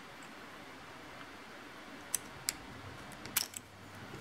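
Scissors snipping through a thin half-inch flat brass strip: a couple of sharp metallic clicks about two seconds in, then a short cluster of them near the end.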